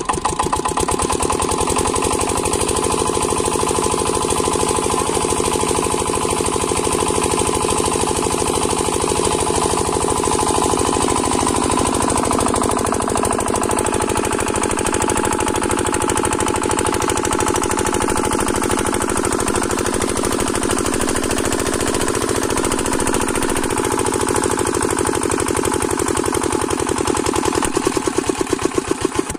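8 hp single-cylinder diesel engine of a water pump set running steadily with a fast, even chugging beat, while the pump throws a gushing stream of water from its discharge pipe. Near the end the engine's beat grows uneven and louder.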